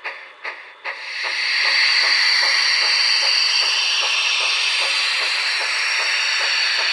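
Sound decoder of an HO-scale Union Pacific Big Boy model steam locomotive, played through the model's small onboard speaker. Exhaust chuffs come about two and a half a second, then about a second in a loud steady steam hiss comes on and holds, with faint chuffs still going underneath.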